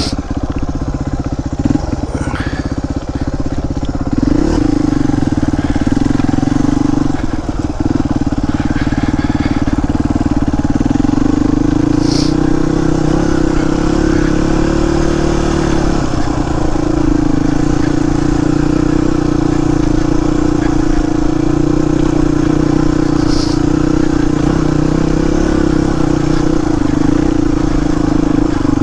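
Suzuki DR250S single-cylinder four-stroke engine running through a Dominator aftermarket exhaust as the bike is ridden slowly. The note picks up and gets louder about four seconds in, then holds steady, with a slight change in pitch partway through.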